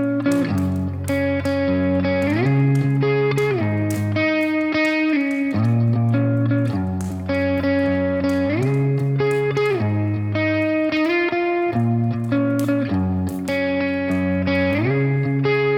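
Strummed guitar playing a repeating chord progression, the chords changing every second or two, with no singing.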